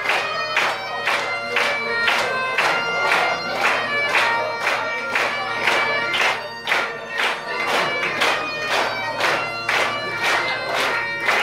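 Great Highland bagpipes playing a tune over their steady drone, with a room full of people clapping in time to it.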